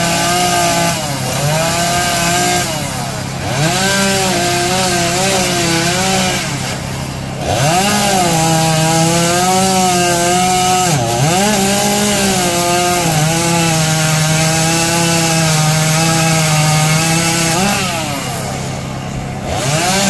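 Gasoline chainsaw carving into wood: the engine runs at high revs, its pitch dropping as the throttle is eased off and climbing again about five times.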